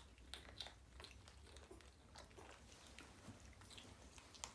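Faint wet clicks and smacks of a baby monkey chewing food it has just put in its mouth, over a low steady hum.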